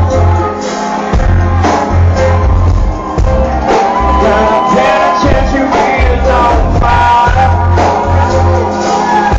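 Live rock band playing loudly: electric guitar, heavy bass and drums, with a man singing. The strong bass dominates the close-up recording.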